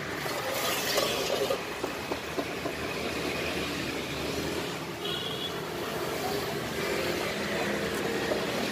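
Steady road-traffic noise, an even rumble, with a short high tone about five seconds in.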